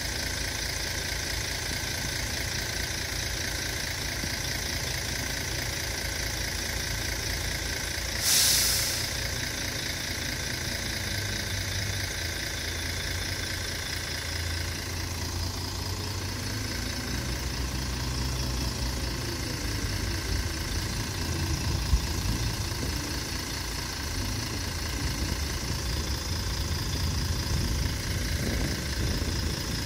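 Mercedes-Benz Citaro O530 bus's OM457 inline-six diesel running at idle, kept running to build up low air pressure in the brake system. About eight seconds in there is a short, sharp hiss of released compressed air, and there is a single click a little after twenty seconds.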